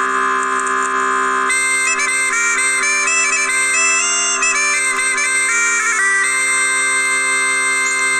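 Instrumental music: a quick melody played over several steady held drone notes, which keep sounding after the melody stops about six seconds in.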